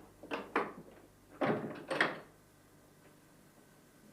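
A wooden door being handled: four short thuds and clatters in two pairs, the second pair louder.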